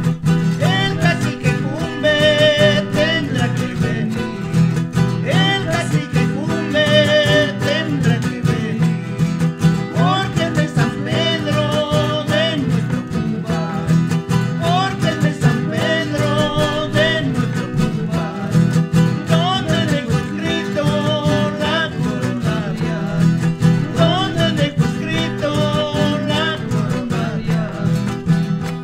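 Traditional string music: guitars strummed and plucked under a wavering melody line that carries on without a break.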